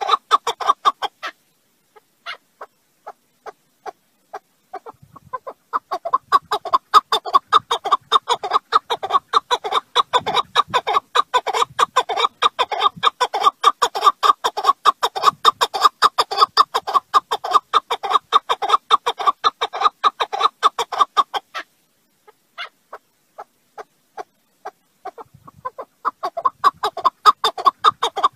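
Alectoris partridge (keklik) calling: long runs of rapid, rhythmic clucking notes. The calling breaks off about a second in, picks up again after a few sparse notes, stops for a few seconds past the middle, and resumes near the end.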